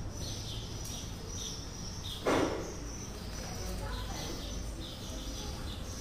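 Small birds chirping over and over, short high chirps about twice a second, over a steady low background rumble. One brief louder noise stands out about two seconds in.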